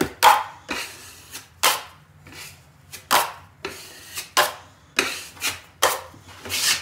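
Drywall knife scraping joint compound over a patched hole in drywall, in quick repeated strokes of about two a second.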